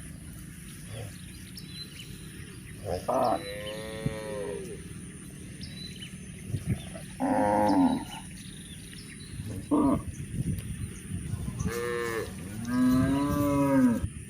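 Cattle mooing: about five separate calls, some short and some drawn out, the longest near the end.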